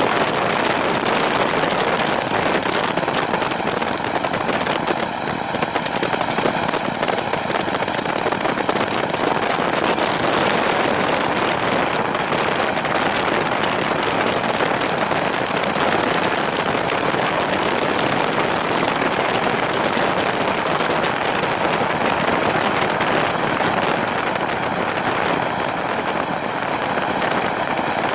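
Helicopter in flight heard at very close range: steady, dense rotor and engine noise mixed with heavy wind rush on the microphone, with a faint high whine running through it.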